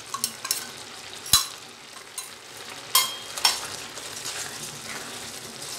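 Spoon and spatula knocking and scraping against a non-stick pan as crumbled khoya is added and stirred into simmering carrot halwa, over a steady low sizzle. Several sharp clicks, the loudest about a second and a half in and two more near the middle.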